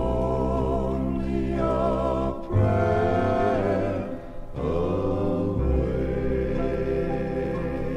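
Male gospel quartet singing long held chords in close harmony over a very deep bass voice, the chord changing twice.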